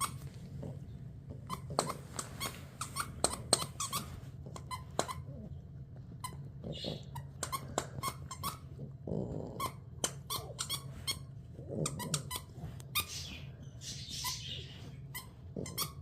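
Dog chewing a squeaky toy, setting off many short, irregular squeaks.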